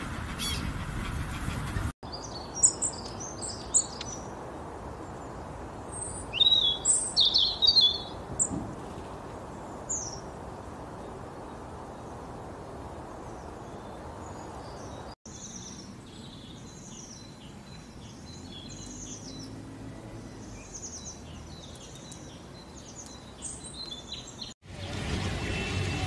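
Small songbirds chirping and twittering in short, high-pitched calls over a steady outdoor hiss. The calls are loudest in two clusters a few seconds in, then go on more faintly and sparsely.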